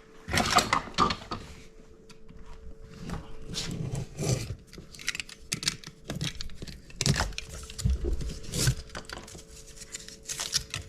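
Hand tools and wiring being handled at an electrical outlet box: irregular clicks, knocks, scrapes and rustles. A faint steady hum runs underneath.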